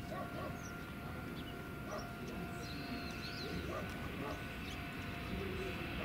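Steady low outdoor rumble beside the railway with scattered short, high chirps, as of small birds, and a faint steady hum; no train passing yet.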